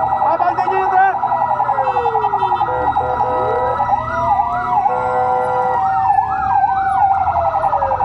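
Several fire-engine sirens sounding together: a fast pulsing yelp throughout, overlaid by slower wails rising and falling in pitch and quick up-and-down sweeps. Two short horn blasts cut in about three and five seconds in.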